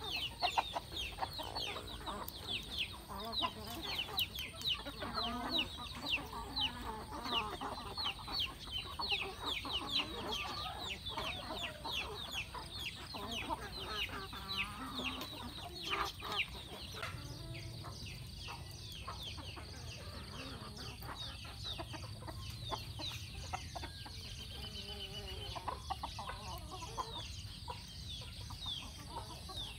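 A flock of chickens clucking and calling, with a dense run of short, high, falling chirps several times a second throughout.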